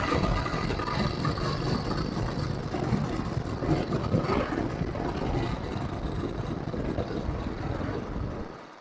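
Motorcycle engine and exhaust running steadily while on the move, with a dense, even sound that eases slightly near the end.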